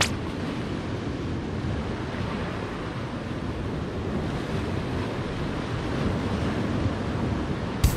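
Sea surf washing against a rocky shore, with wind buffeting the microphone, a steady rushing noise. A sharp click comes near the end.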